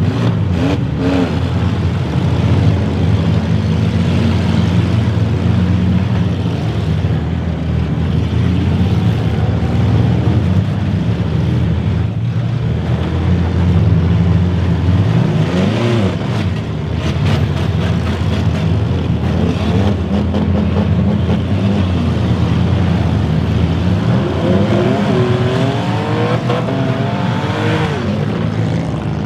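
Many demolition derby car engines running and revving hard together, pitches rising and falling as the drivers gun them. A few sharp crunches of cars ramming each other come through.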